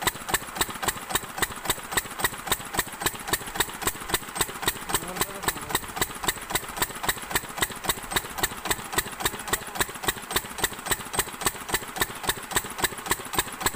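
Single-cylinder stationary diesel pump-set engine idling, with an even, slow beat of sharp firing knocks.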